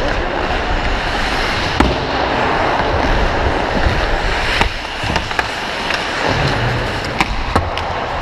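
Ice hockey skates scraping and gliding on rink ice, heard close from a skating player's body-worn camera, with a steady rushing noise. Four sharp clacks of hockey sticks and puck cut through it: one about two seconds in, one near the middle and a quick pair later on.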